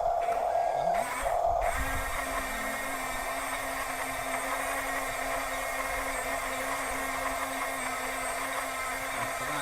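Small electric motors of a radio-controlled construction model whining as they run. A higher whine stops about a second in and comes back briefly, then a lower, steady whine with overtones takes over from about two seconds in.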